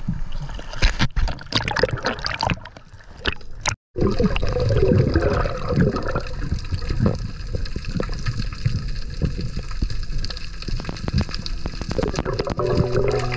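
Seawater sloshing and splashing around a diver's camera at the surface, then the muffled rush and gurgle of water with the camera underwater, with a short break about four seconds in. Steady music tones come in near the end.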